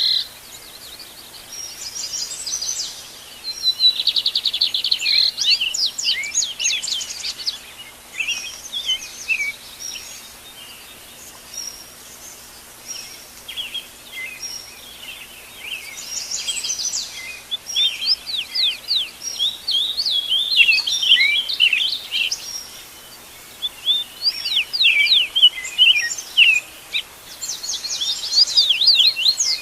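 Several songbirds singing in a dawn chorus: fast high trills and quick downward-sweeping whistled notes, in phrases a few seconds long with short lulls between them.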